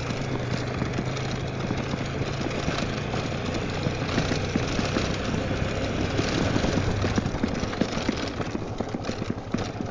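Italika Tornado 250's single-cylinder engine running steadily, with a low engine hum under road and wind noise.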